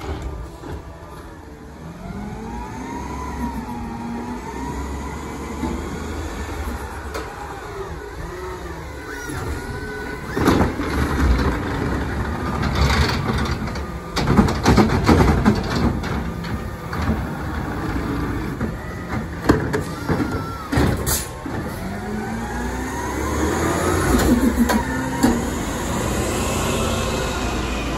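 Compressed-natural-gas Autocar garbage truck with a McNeilus ZR automated side-loader running, its engine pitch rising and falling as it pulls up and then moves off. Through the middle, a run of loud bangs and knocks as the arm lifts a wheeled trash cart, shakes it empty into the hopper and sets it back down.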